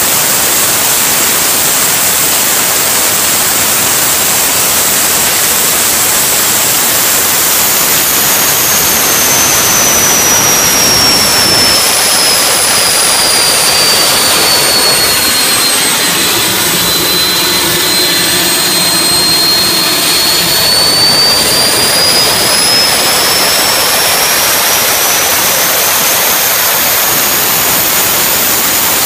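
Lockheed L-1011 TriStar auxiliary power unit, an ST6L-73 twin-shaft gas turbine derived from the Pratt & Whitney PT6, running loud and steady with a dense rushing noise and a high whine. The whine slowly falls to about half its pitch around the middle, then climbs back up near the end.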